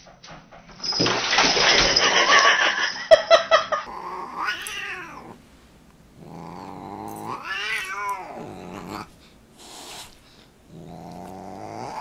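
A Siamese cat yowling at a dog in long, drawn-out wails that rise and fall in pitch, three in a row, the longest in the middle. Before the wails there are about three seconds of loud rushing hiss-like noise.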